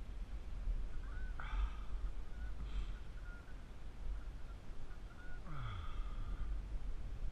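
Riverside ambience: a steady low rumble over the flowing river, broken by three short pitched calls about a second and a half, three and five and a half seconds in.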